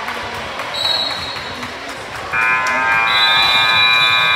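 Basketball game noise with a ball bouncing, then about two seconds in a gym scoreboard buzzer starts and holds one loud, steady electric tone, marking the end of the game.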